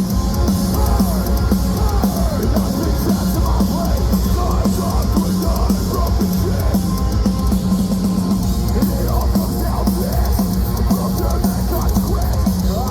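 A metalcore band playing live and loud, with a pounding drum kit under heavy guitars, the sound steady and unbroken throughout.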